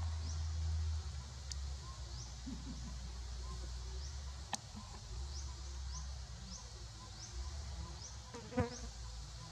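Insects buzzing steadily, with short rising chirps repeating every half second or so, over a low rumble. A faint click sounds about halfway through and a sharper tap near the end.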